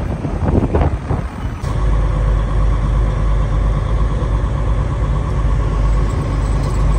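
Semi-truck engine and road noise heard from inside the cab as the truck drives slowly: a steady low rumble with a faint steady hum above it, starting abruptly about a second and a half in. Before it, uneven outdoor noise.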